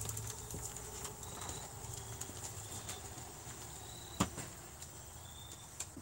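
Faint plastic clicks and knocks from a Hoover Air Steerable upright vacuum being handled and tilted back on its handle, with one sharper knock about four seconds in. Insects chirp steadily in the background.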